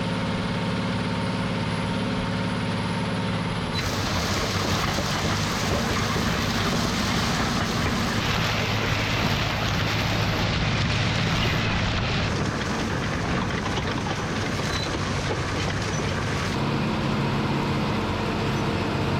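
Tractor engine running steadily under load while pulling a disc ripper through wet field ground. About four seconds in the sound changes abruptly to a noisier, hissier mix, and it switches back near the end.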